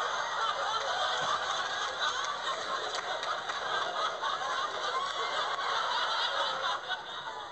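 Many people laughing together, a dense steady wash of laughter that eases off slightly near the end.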